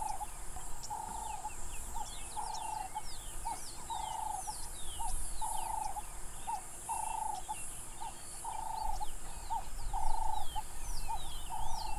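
Birdsong chorus: many quick falling chirps over a low two-note call that repeats steadily about every second and a half, with a steady high buzz behind.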